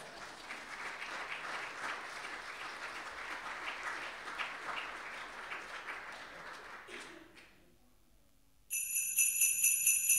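Audience clapping for about seven seconds, dying away; after a short pause, Christmas music with jingle bells starts near the end.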